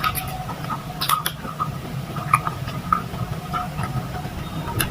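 Close-up eating sounds: chewing with irregular wet clicks and lip smacks, over a steady low hum.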